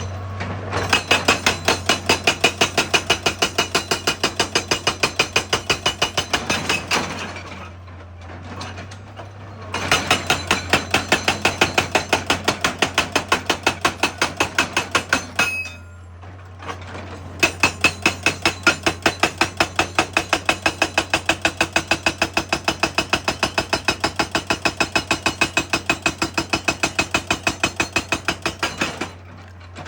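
Excavator-mounted hydraulic breaker hammering rock in rapid, even blows, about five a second, in three long runs with short pauses between, over a steady low hum.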